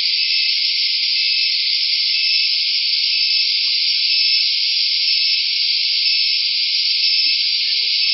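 Steady high-pitched hiss, with a faint short beep-like tone repeating about once a second.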